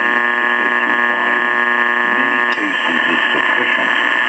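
Elecraft K3 receiver audio on 80 meters: a steady buzz of power-line noise masking an AM voice signal. About two and a half seconds in, with a click, the noise blanker cuts in, the buzz drops away and the AM voice comes through.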